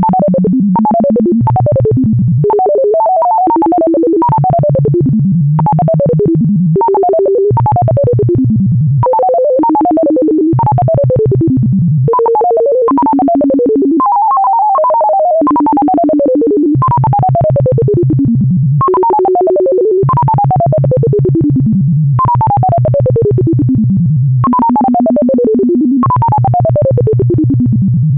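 Synthesized beeping tones of an insertion sort sonification: again and again a rapid run of beeps glides down in pitch, then a few steadier held tones sound before the next falling run. Each downward run is an element being shifted down past larger values into its place.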